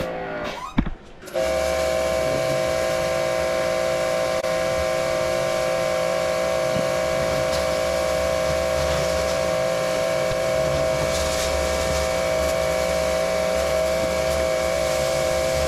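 Electric 1900 PSI pressure washer running under load: the motor-driven pump whines with a steady tone over the hiss of the water jet. The sound briefly drops out about a second in, then runs on unchanged.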